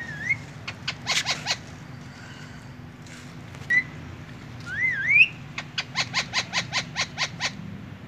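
Indian ringneck parakeet calling: a wavering whistle, a quick cluster of short chirps, then another whistle that dips and rises about five seconds in. A run of about ten sharp calls follows, roughly five a second.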